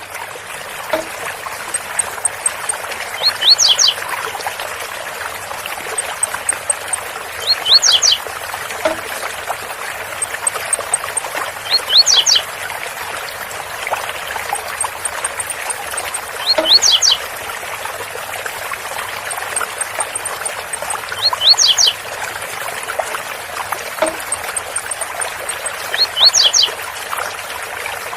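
Blue-black grassquit (tiziu) singing its 'zel zel' song: a short phrase of quick rising high notes, repeated six times about every four to five seconds, with faint rapid high ticks between phrases. A steady waterfall rush runs beneath it.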